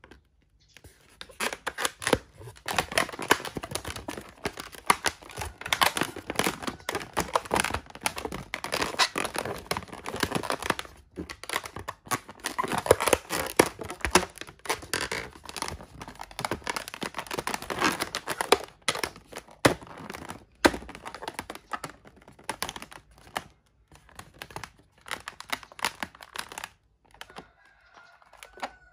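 Inflated latex twisting balloons squeaking and rubbing against each other as they are twisted and tucked by hand. The squeaks and scrapes come thick and irregular, with a short pause about eleven seconds in and another near the end.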